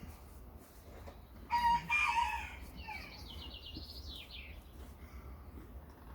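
A loud animal call with a clear pitch, about a second and a half in and lasting about a second, followed by a quick run of high, falling bird chirps.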